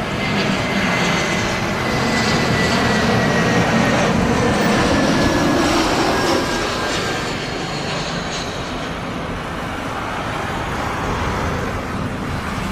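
Jet airliner turbofan engines running, heard as a continuous rushing noise with a faint high whine that slowly falls in pitch over the first several seconds.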